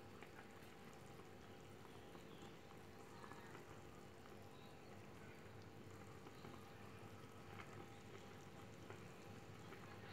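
Near silence: rendang faintly simmering in a wok, with a few light spoon ticks over a steady low hum.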